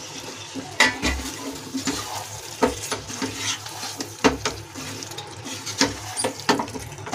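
Wooden spatula stirring paneer cubes into thick masala gravy in a kadai: soft wet squelching, with irregular knocks of the spatula against the pan.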